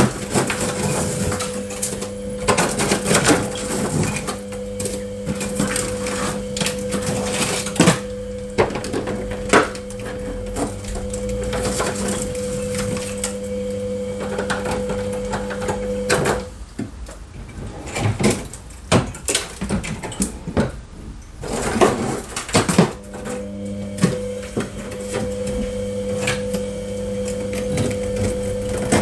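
Freezer ice being chipped and broken away, with repeated cracks, knocks and clatter of ice chunks. Under it a steady electric hum stops about halfway through and starts again several seconds later.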